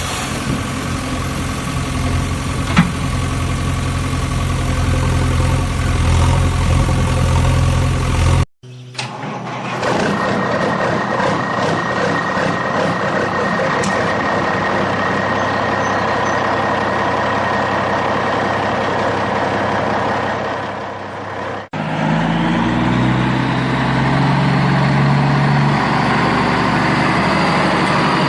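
A vehicle engine running, in three stretches with different tones joined by abrupt cuts, one about a third of the way in and one about three-quarters through.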